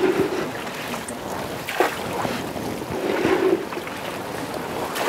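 Floodwater sloshing and splashing around a small wooden boat as it is boarded and pushed off, with wind on the microphone. A short knock or splash comes a little under two seconds in.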